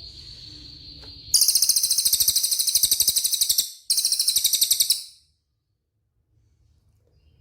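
A cililin songbird singing: a steady high whistle, then about a second in a loud, very rapid, high-pitched rattling trill that runs a few seconds, breaks briefly and resumes, stopping about five seconds in.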